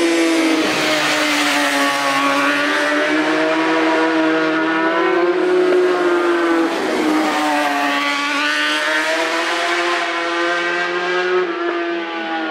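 Racing motorcycles at high revs passing along the road course. The engine note runs loud and continuous, dips about halfway through, then climbs again as a bike accelerates away through its gears.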